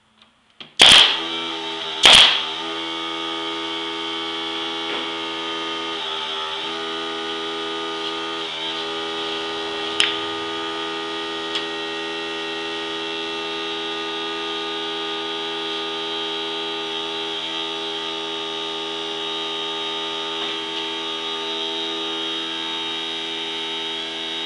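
Two shots of a Central Pneumatic pneumatic brad nailer driving brads into pine crate slats, about a second apart, followed by a steady droning hum with a high whine that runs on unchanged. A single sharper click comes about ten seconds in.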